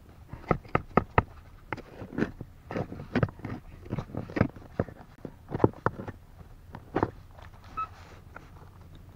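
A small hand tool scraping and jabbing into stony, gritty soil between rocks: a run of irregular sharp scrapes and knocks, one to three a second. A short high beep sounds once near the end.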